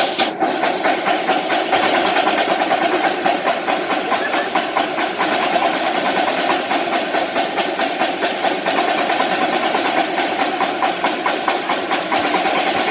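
Marching drumline playing a fast, unbroken run of drum strokes.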